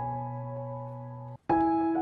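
Background piano music: soft held chords that break off briefly about a second and a half in, then a new chord sounds.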